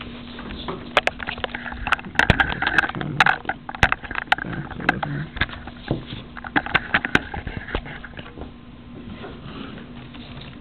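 Lego pneumatic inline scotch-yoke engine running on air from a bicycle pump: a quick, even pattering rattle of plastic pistons and valves, with a run of sharper clicks and knocks through the middle.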